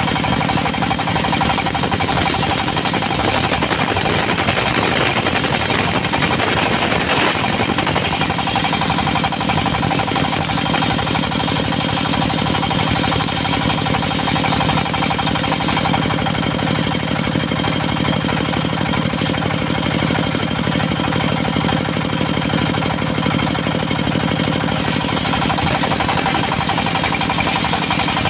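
Diesel engine of a portable circular-saw sawmill running steadily with a rapid, even pulse. A rougher, louder stretch comes a few seconds in.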